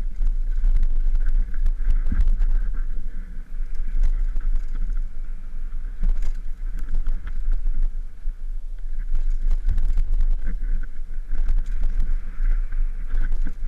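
Mountain bike descending a rough dirt trail, heard from a helmet-mounted GoPro: a steady rush of wind rumble and tyre noise on dirt, broken by frequent short rattles and knocks as the bike hits bumps, rocks and roots.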